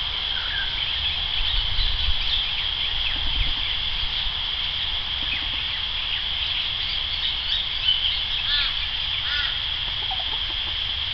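Birds giving scattered snake alarm calls, among them a bantam hen, with two stronger calls about a second apart near the end. Underneath is a steady high-pitched buzz.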